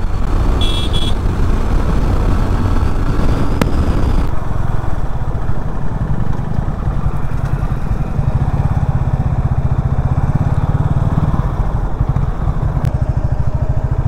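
Motorcycle engine running at road speed with wind noise on the microphone. About four seconds in the throttle is rolled off and the rush dies away. The engine then runs slowly with a steady low beat as the bike pulls up. A short high beep sounds about a second in.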